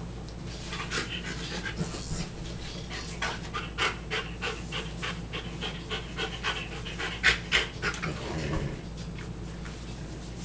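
Dog panting fast, about three breaths a second, until it settles about eight seconds in.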